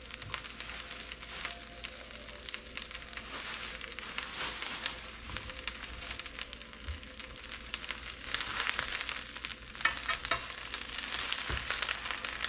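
Water spinach frying in a pan of hot butter and cooking oil with browned garlic: a steady crackling sizzle. It gets louder in the last few seconds as the leaves are turned over with chopsticks.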